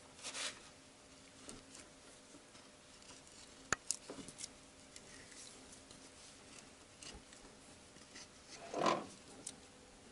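Faint clicks and scraping of an 18 mm tap being turned by hand in the aluminium spark-plug hole of a cylinder head, cutting new threads, with one sharp click a little under four seconds in. A short grunt near the end.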